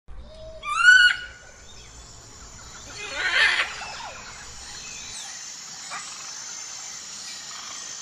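Monkey calls: a shrill call rising in pitch about a second in, then a harsh screech about three and a half seconds in, over a steady chirring of insects.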